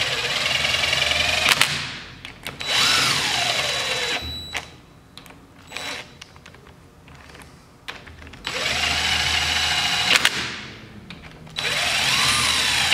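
Cordless drill with a 14 mm socket snugging down the cylinder head nuts of a Polaris Sportsman 500 engine, in four short runs. Each run's motor whine rises, then drops as the nut seats. Clicks and knocks come between the runs as the socket is moved from nut to nut.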